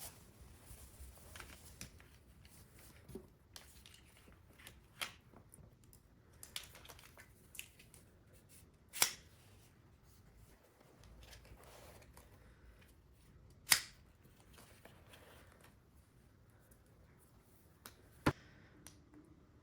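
Sparse light clicks and taps of household handling noise in a small room, with three sharper clicks about nine, fourteen and eighteen seconds in.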